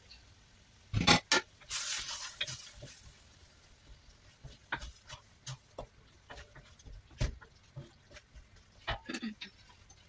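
Glass lid taken off a wok with a couple of sharp knocks about a second in, followed by a brief sizzle from the simmering curry. Then a wooden spatula stirs the thick curry in the wok, with scattered taps and scrapes.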